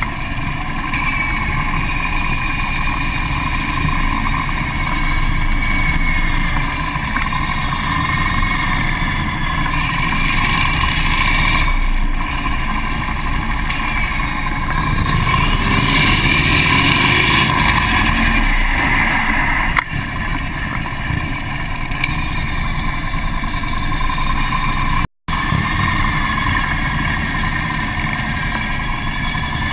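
Harley-Davidson police motorcycle V-twin engine running at low speed, heard from a camera mounted on the bike, with other motorcycles of the pack close ahead. The engine sound swells for a few seconds in the middle, and the sound cuts out for a moment near the end.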